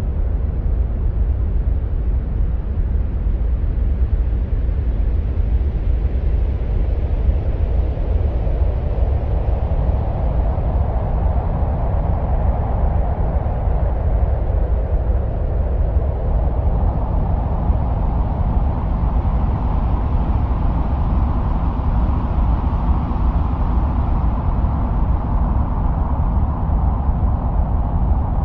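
Wind-like ambient soundscape presented as the sound of Mars: a steady deep rumble under a soft hiss. A slow whooshing swell builds about a third of the way in, drifts a little higher in pitch and fades near the end.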